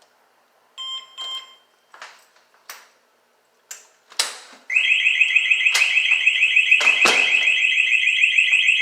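Exit door alarm: two short beeps just after it is switched on with the key, a few clicks and knocks, then about four and a half seconds in a loud, high-pitched, rapidly pulsing alarm tone starts and keeps sounding, with a couple of knocks over it. The alarm is set on a 3-second delay.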